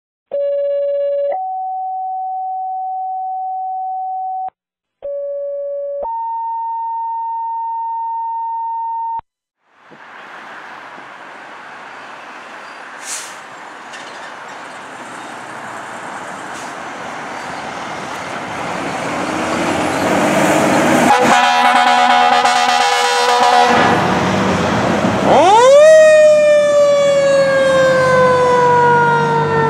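Two-tone fire dispatch paging tones: two pairs of steady beeps, each a short low tone followed by a longer higher one. Then comes the building noise of fire trucks pulling out, a steady air-horn blast lasting about three seconds, and a mechanical siren spinning up fast near the end and winding slowly down in pitch.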